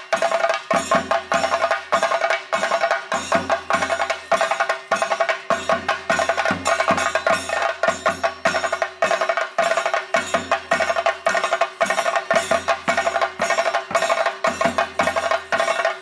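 Chenda drums beaten with sticks in a fast, driving rhythm, with deeper strokes coming in regular groups over a steady ringing tone: the percussion that accompanies a Theyyam dance.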